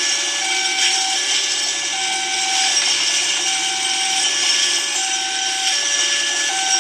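Railway level-crossing electronic warning alarm sounding a low tone and a high tone in turn, each held about three-quarters of a second, over a steady rushing noise.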